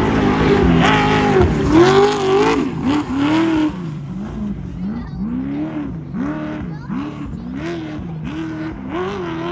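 Trophy truck engine revving hard as it passes close by, then fading as it pulls away, its revs rising and falling over and over, about one and a half times a second.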